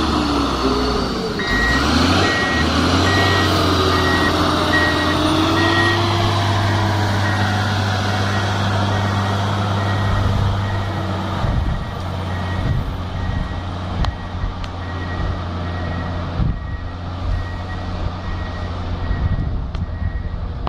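Tracked snow groomer's diesel engine running under load, its pitch rising and falling in the first few seconds, with a reversing alarm beeping steadily from about a second in. The engine grows quieter after about ten seconds as the machine moves off.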